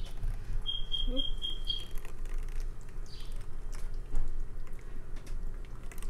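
Thick blended marinade being poured over raw chicken thighs in a metal baking pan, with soft wet patter and handling noise. About a second in, five short, identical high peeps sound in quick succession.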